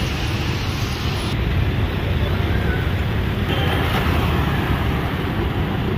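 Steady low rumble of a diesel-hauled passenger train rolling in, with no single sharp event.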